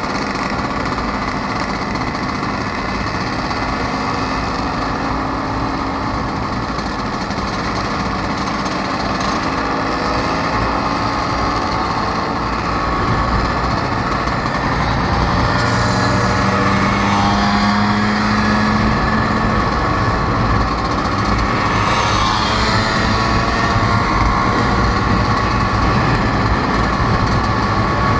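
Vespa scooter engine running while riding along, steady at first, then getting louder and rising in pitch about halfway through as it speeds up.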